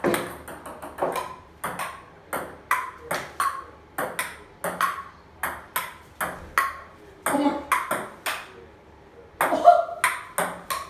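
Table tennis rally: a ping-pong ball ticking off paddles and bouncing on a wooden dining table, a steady back-and-forth of sharp pings about two to three a second.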